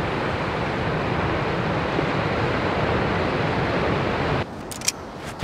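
Ocean surf washing over a rocky shore, heard as a steady rush of noise mixed with wind. It drops off sharply about four seconds in, followed by a couple of faint knocks.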